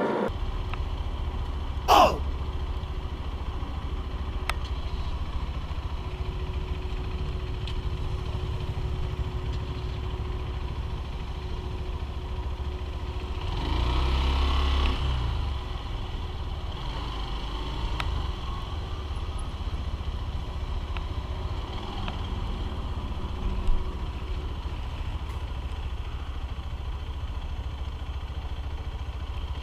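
Honda CBF125R 125 cc single-cylinder motorcycle engine running steadily under a low rumble. There is a sharp knock about two seconds in, and a louder swell of noise lasting about two seconds near the middle.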